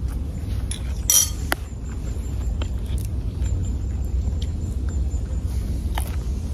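Scattered light clinks of a spoon against picnic dishes, the loudest about a second in, over a steady low rumble.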